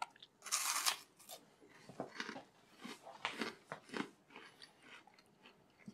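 A bite into a freeze-dried mini Snickers bar: one loud, crisp crunch about half a second in, then softer, irregular crunches as the brittle, puffed candy is chewed.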